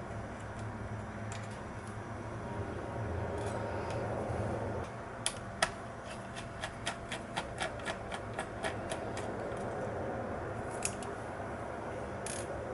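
A run of small, sharp clicks over a steady low hum: two louder clicks about five seconds in, then about a dozen evenly spaced clicks at three to four a second, and two more single clicks near the end.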